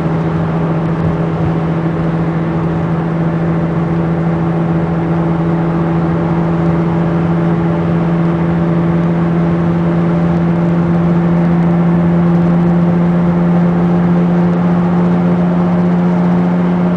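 Steady low drone heard inside the cabin of a 2002 VW Beetle TDI at highway speed, from a bad passenger-side front wheel bearing, over engine and road noise. It grows a little louder partway through.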